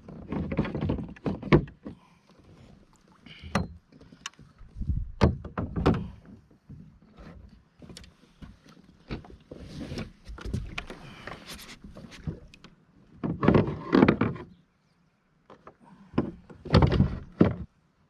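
Irregular knocks, thuds and rustling of gear being handled against the hull of a plastic angling kayak. There are two louder clattering bursts in the second half.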